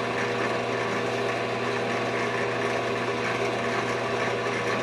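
Drill press motor running steadily with an even hum while it spins a thin music-wire shaft, as a rosin-dressed cloth is held against the wire to polish it.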